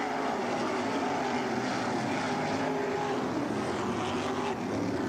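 Several winged sprint cars' V8 engines racing on a dirt oval, their overlapping engine notes rising and falling in pitch as they pass.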